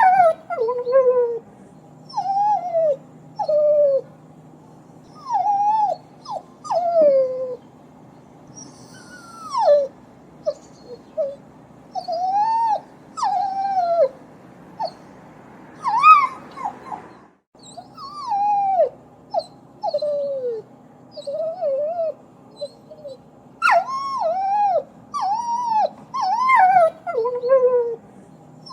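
Dog whimpering and crying: a string of short, high-pitched whines that rise and fall in pitch, coming in clusters with short pauses between, over a faint steady hum. The sound breaks off to silence for a moment about two-thirds of the way through.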